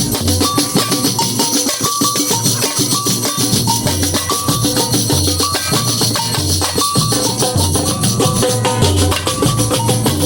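Samba batucada percussion section playing a steady groove: deep bass drum beats repeating under a continuous high rattle of shakers and tambourine-like jingles.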